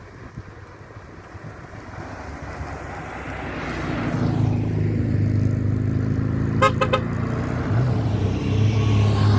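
Rally car engines approaching and passing on the road, growing steadily louder. About two-thirds of the way in, a car horn gives a quick run of short beeps.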